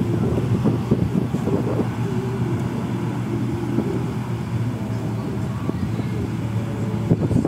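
Komatsu crawler excavator's diesel engine running steadily while the machine stands still.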